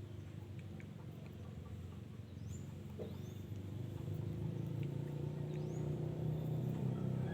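A motor vehicle engine running steadily, getting louder through the latter half, with a few faint high chirps from small birds.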